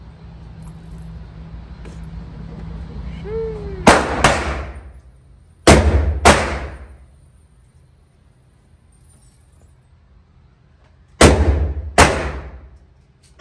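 Suppressed 9mm CZ Scorpion EVO 3 S1 carbine firing at an indoor range: sharp shots, mostly in quick pairs (three doubles and one more near the end), each ringing off the range walls.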